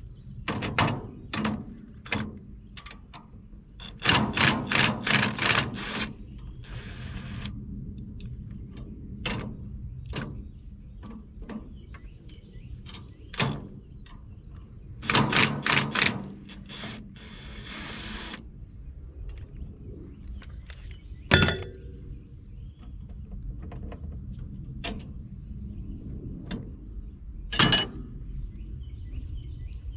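Hand tools working on the steel housing and linkage of a Caterpillar No. 29 cable control unit: scattered knocks and clicks, two runs of rapid evenly spaced clicking like a ratchet wrench turning bolts, and two sharp metal clanks that ring briefly, the louder about two-thirds of the way through.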